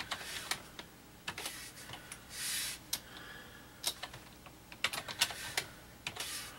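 Computer keyboard keys clicking as a password is typed, irregular keystrokes that come closer together in the second half. A short soft rush of noise comes about two and a half seconds in.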